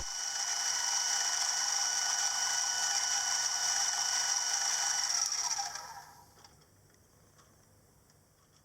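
Milling machine spindle running with a steady high whine, switched off about five and a half seconds in and winding down to near silence.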